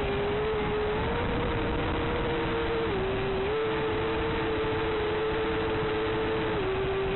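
Racing quadcopter's DJI Snail motors and propellers whining through the onboard FPV link, a steady tone that steps up and down in pitch as the throttle changes, over a constant radio hiss.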